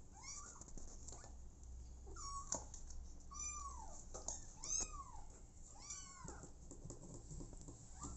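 Kitten mewing: about five short, high calls, each rising and then falling in pitch, roughly one a second, with faint rustles in between.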